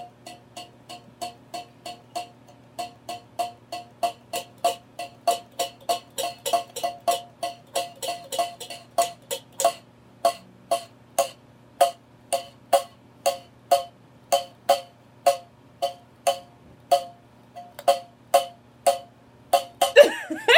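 Steady rhythmic tapping, about two to three sharp, short knocks a second, each with a brief pitched ring, like a simple percussion beat.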